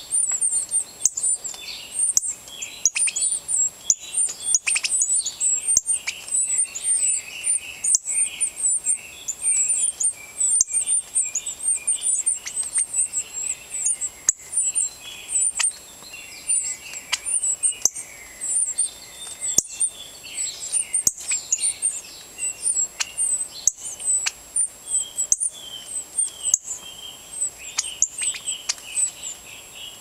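Northern cardinal nestlings begging for food with rapid, high-pitched chirps, over lower chirping calls, with many sharp clicks throughout.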